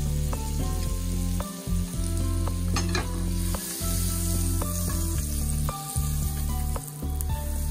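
Butter sizzling as it melts in a hot frying pan, with a sharp pop about three seconds in. Background music with low sustained notes plays over it.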